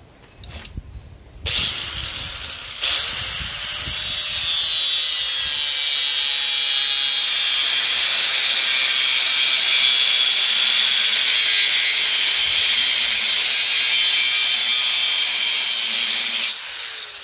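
DeWalt angle grinder cutting rusty sheet steel. Its motor starts about a second and a half in and whines up to speed, grinds steadily and loudly through the cut, then switches off near the end with a falling whine as the disc winds down.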